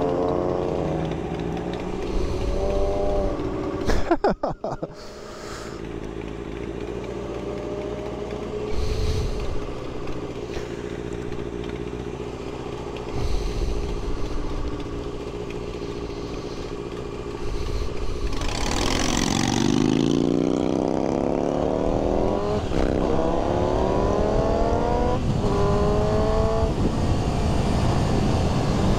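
Suzuki GSX-R600 inline-four motorcycle engine ticking over at a standstill, with a short burst of loud noise about four seconds in, then accelerating hard from about two-thirds through, revs rising and dropping back at each upshift, over wind noise.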